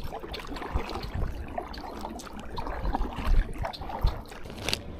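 Water splashing and lapping around a small boat such as a kayak, with irregular small knocks and several heavy low thumps, the loudest about three seconds in.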